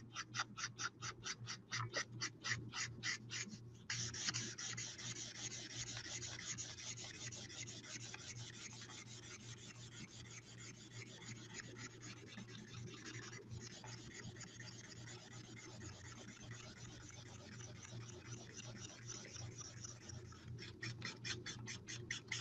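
Felt tip of a Stampin' Blends alcohol marker rubbing back and forth on cardstock, worked over a coloured area to blend out streak lines. It starts as quick strokes at about four a second, turns into a continuous scrubbing for most of the time with one short break, and goes back to quick strokes near the end.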